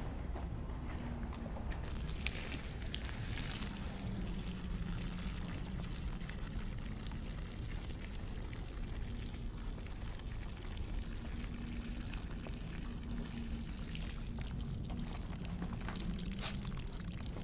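Liquid pouring in a stream that starts suddenly about two seconds in, is strongest for the first second or so, then goes on trickling more faintly, over a faint low hum.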